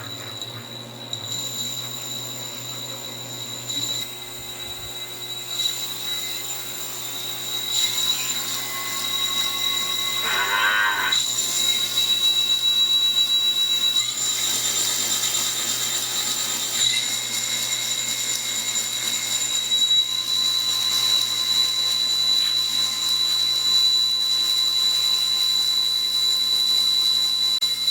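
Homemade 2x72 belt sander driven by an electric-bike hub motor, running with a steady high-pitched whine that grows louder over the first dozen seconds. A rougher, hissier stretch comes around fifteen seconds in.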